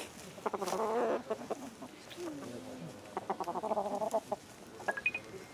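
Domestic hen clucking softly while held, in two runs of quick low pulsed calls, about half a second in and about three seconds in, with a short falling call between them.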